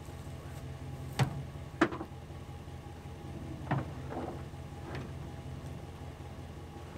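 A deer carcass being loaded into a pickup truck's bed: a few sharp knocks and clunks against the tailgate and bed, the two loudest close together about a second in, over a steady low hum.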